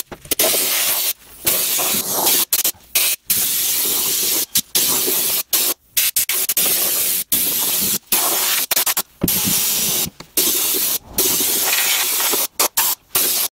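Air-powered undercoating spray gun spraying Fluid Film rust-proofing oil: a loud hiss delivered in a string of blasts, each cut off by a short gap as the trigger is let go and squeezed again.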